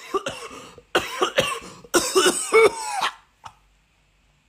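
A man coughing in three hard bouts of several coughs each over about three seconds, a cough that comes with his head cold and blocked nose.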